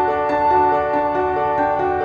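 Instrumental background music: a keyboard plays an even run of notes over sustained tones, without a beat.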